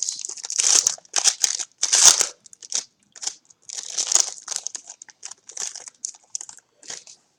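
A trading-card pack's wrapper being torn open and crinkled by hand, in a run of irregular crackly bursts that stops shortly before the end.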